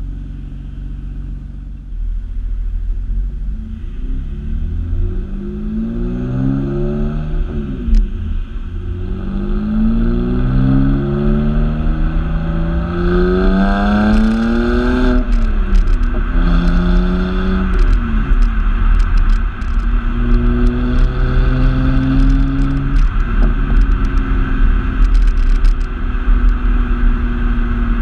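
2007 BMW 328i's straight-six through a muffler-deleted exhaust, heard at the tailpipes: idling, then pulling away and accelerating, rising in pitch over a few pulls with a drop at each gear change, then holding at a steady cruise. A low wind rumble sits under it once the car is moving.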